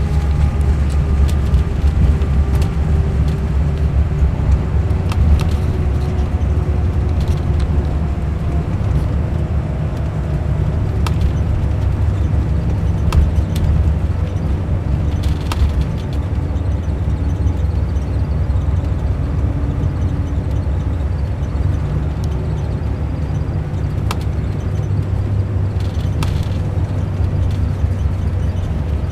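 Mercedes-Benz O500 RSD coach's diesel engine running with a deep, steady rumble. A fainter whine above it slides slowly down in pitch over the first several seconds, then rises and falls, with occasional short clicks and rattles.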